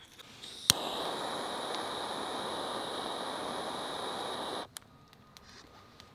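Butane jet torch lighting with a sharp click, then burning with a steady hiss for about four seconds before cutting off abruptly.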